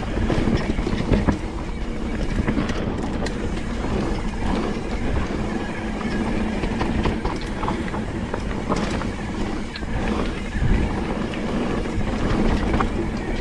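Mountain bike riding fast down a rough dirt trail: a steady rattle and clatter of the bike over the ground, with many small irregular knocks and a strong low rumble.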